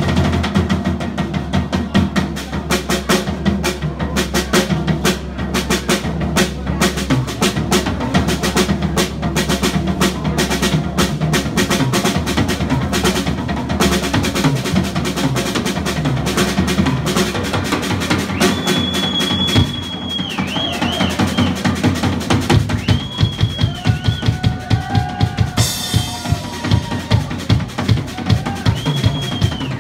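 Live rock drum solo on an acoustic drum kit: fast bass drum, snare and tom strikes with cymbal crashes, including rolls, played continuously.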